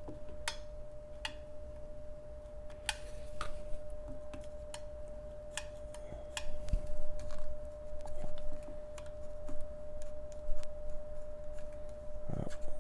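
A small hot glue gun's trigger being squeezed over and over, giving irregular sharp plastic clicks as the glue stick is pumped through onto battery terminals. The clicks come about once a second, faster and louder in the second half, over a steady faint tone.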